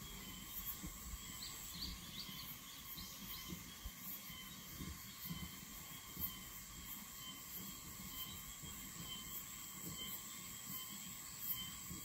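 Faint ambient background: a steady high-pitched hum made of several held tones, with a few short faint chirps about one to three seconds in.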